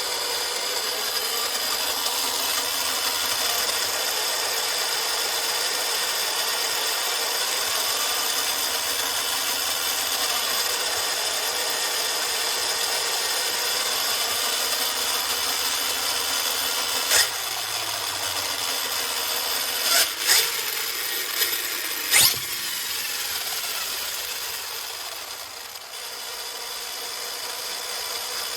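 Arrma Kraton RC truck's electric motor and drivetrain running steadily at low speed with the wheels turning, breaking in the differentials. A few sharp clicks come about two-thirds of the way through, and the whine briefly dips near the end.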